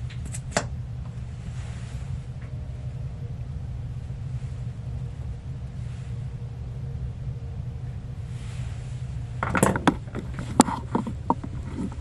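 A steady low hum, with two sharp clicks about half a second in and a run of small knocks and clatters starting about nine and a half seconds in.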